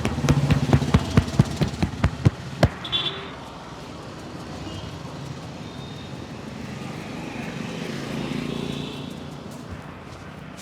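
Rhythmic hand slaps of a barber's percussive head massage, about four a second, which stop about three seconds in; after that, steady street traffic noise.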